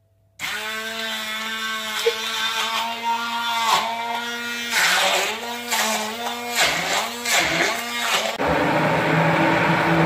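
Electric stick (immersion) blender starting up about half a second in and running in a bowl of strawberries and banana, its motor whine dipping in pitch again and again as the blades bite into the fruit. About eight seconds in the sound turns rougher and lower as the fruit is blended to a purée.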